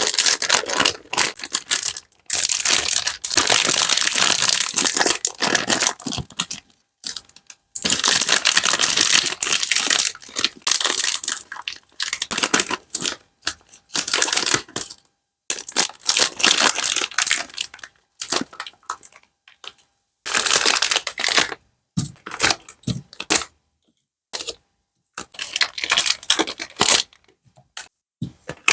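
Plastic sweet packaging crinkling and rustling as it is handled, in stretches of a few seconds broken by short pauses.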